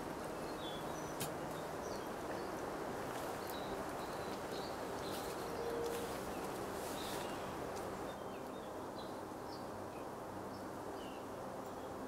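Outdoor forest ambience: a steady low rushing noise with scattered faint bird chirps, and a single sharp click about a second in.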